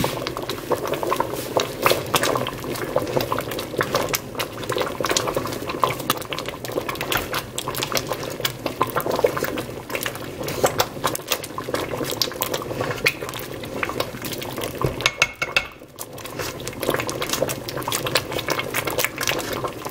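A wire potato masher pressing through soft cooked beans in a stainless steel Instant Pot liner: repeated metal clinks and scrapes against the pot with wet squelching of the beans as they simmer.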